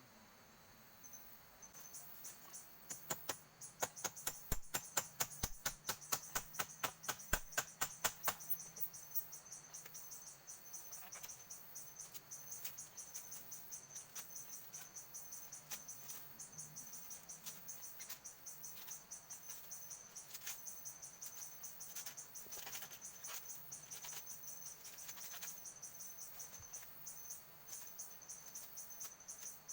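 An insect, a cricket by its call, chirping in a fast, regular pulse over a steady high tone. It starts about two seconds in and is loudest between about three and eight seconds.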